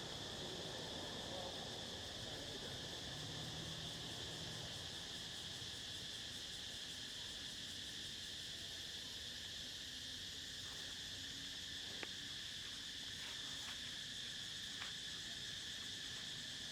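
Steady high-pitched insect chorus, an unbroken chirring drone, with a few faint clicks in the second half.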